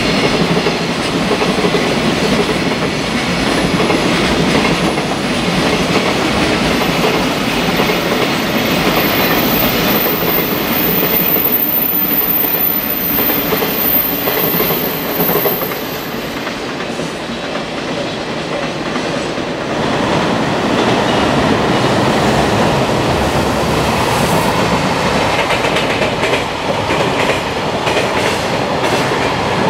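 Freight trains passing over slab track: a continuous rumble with the rhythmic clatter of wheels over the slab-track rail joints. The sound dips briefly past the middle, then picks up again as the passing continues.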